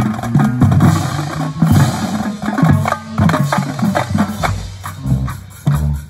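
High school marching band playing, with the drumline and pit percussion prominent: rhythmic drum strokes and clacking percussion over held pitched notes, easing off briefly near the end.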